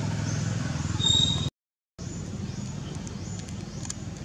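Outdoor ambience: a low steady rumble with a short high-pitched call about a second in, then a brief total dropout, and faint high chirps repeating about once a second afterwards.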